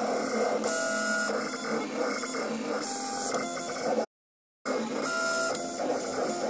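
USCutter vinyl plotter cutting vinyl: its motors whir steadily as the blade carriage and sheet move, with two short higher whining runs, about a second in and about three seconds in. The sound cuts out completely for half a second just past the middle.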